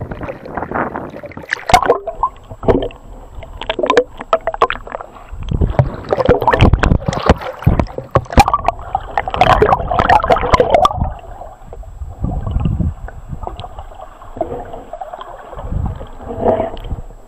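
Lake water splashing and gurgling around a waterproof camera housing as it dips in and out of choppy waves, muffled and irregular, with swells of churning water and scattered sharp clicks and knocks.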